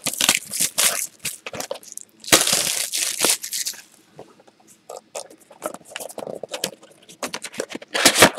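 Plastic shrink-wrap crinkling and a cardboard football-card hobby box being handled: a long burst of crinkling about two seconds in, sparse light taps and scrapes in the middle, and louder handling of the box near the end as it is opened.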